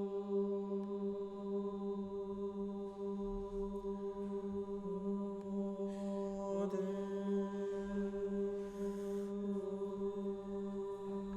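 A steady, low, chant-like drone held on one pitch, with a brief wobble in pitch about seven seconds in. Short hisses come in around six and nine seconds in.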